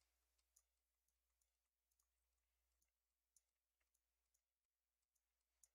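Near silence with a few faint, widely spaced computer mouse clicks.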